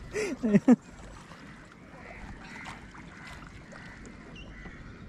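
A short loud call or shout from a voice in the first second, then faint, steady background noise with soft, indistinct sounds.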